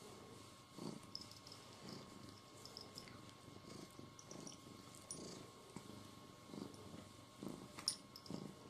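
A domestic cat purring faintly in low, uneven pulses, with one sharp click near the end.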